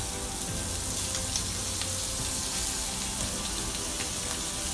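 Skewered shrimp frying in a hot pan: a steady sizzle with small scattered crackles.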